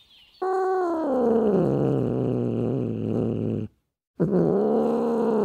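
Clouded leopard calling: two long, loud calls, each starting high and sliding down in pitch, with a brief break between them a little past halfway.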